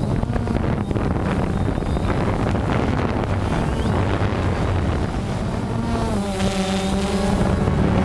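DJI Phantom 2 quadcopter's motors and propellers buzzing in flight, heard from its own onboard camera with wind rushing over the microphone. The pitch dips and rises back about six seconds in as the motor speeds change.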